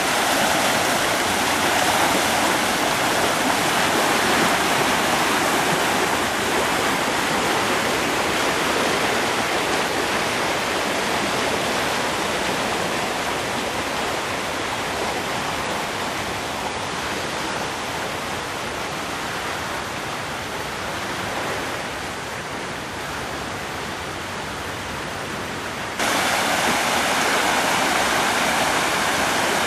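Flood-swollen creek rushing over its banks and spilling across a ledge, a steady loud wash of water. It slowly fades, then near the end suddenly gets louder.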